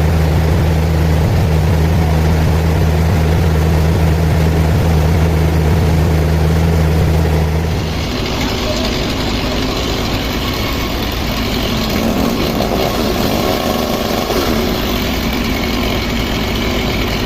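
A large engine running steadily with a deep hum. About eight seconds in, the sound changes abruptly to a busier, noisier machine sound with more hiss and clatter.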